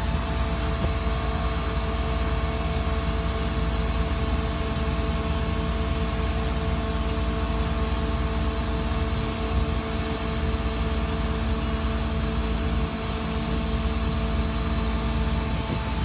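Putzmeister Sika PM 500-PC shotcrete machine running steadily, a constant engine-like drone with a steady hum.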